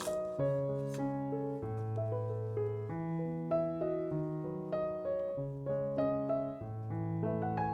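Background piano music: a gentle melody over sustained lower notes.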